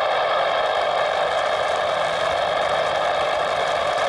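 Steady static hiss with a faint hum from an air traffic control radio channel held open with no one talking.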